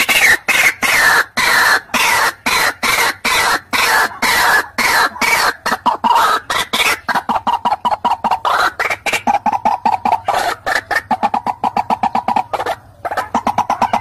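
White-breasted waterhen calling: a loud, unbroken run of fast repeated call notes, several a second, with a short break near the end.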